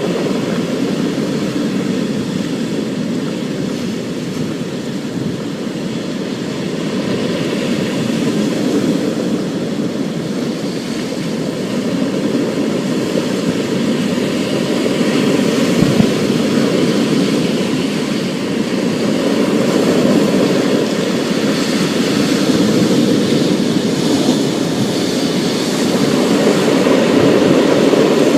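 Thunderstorm: a continuous low rumble that slowly swells and eases, with a fainter hiss above it.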